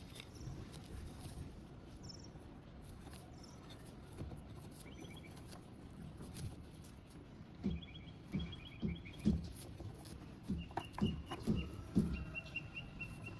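Steel C-clamp being worked down onto a brass stamp on leather: a series of short low knocks and creaks, about two a second, starting about halfway through.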